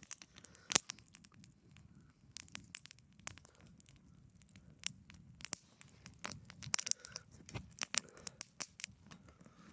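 Small wood campfire burning, crackling with irregular sharp pops and snaps over a faint low hiss.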